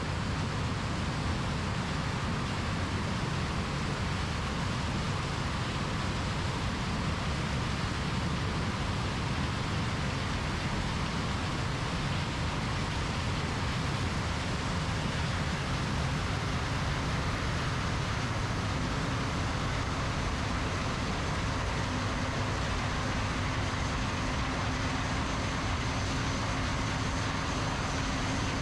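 John Deere combine harvesters running while harvesting corn: a steady, unbroken machinery drone with no clear change in pace.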